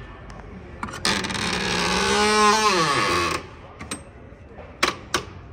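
Cab door of a 1986 Peterbilt 359 being opened: the paddle latch clicks about a second in, then the door swings open with a loud rushing noise and a groaning tone that slides down in pitch, followed by two sharp knocks near the end.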